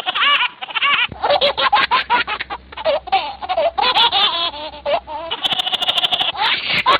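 High-pitched laughter in rapid pulses that starts suddenly. A little over five seconds in it breaks into one held high note, then the pulsing laughter resumes.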